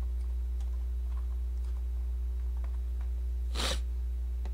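Steady low electrical hum on the microphone, with a few faint clicks and one short swishing noise a little over three and a half seconds in.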